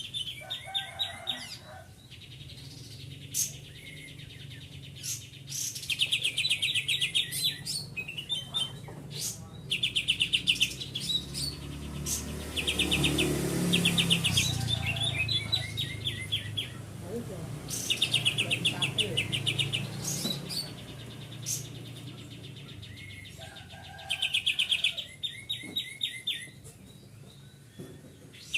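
Cucak ijo (green leafbird) singing in rapid, machine-gun-like trilled volleys, the 'tembakan' song prized by Indonesian bird keepers, each burst about a second long with short pauses between. A low rumble rises under the song about halfway through.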